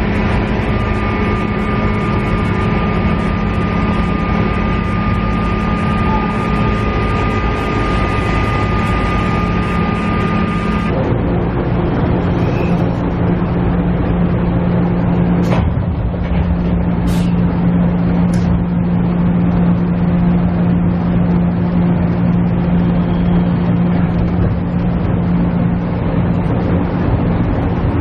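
KiHa E130 diesel railcar running, heard from inside the cabin: a steady engine and transmission drone with a higher whine that cuts off abruptly about eleven seconds in, leaving the lower hum. A few sharp clicks come a few seconds later.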